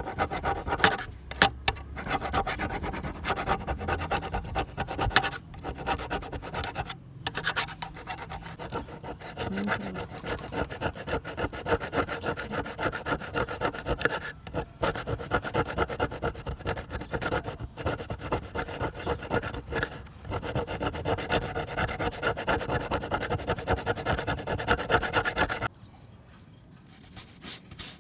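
Abrasive hand tool rasped back and forth in steady, rhythmic scraping strokes, with a few short pauses, stopping abruptly near the end.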